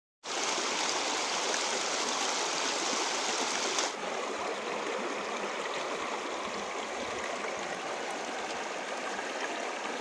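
Shallow rocky stream running over stones: a steady rush of water, dropping slightly in level about four seconds in.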